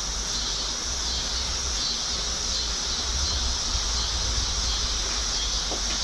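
Steady, high-pitched insect chorus pulsing evenly, over a low rumble.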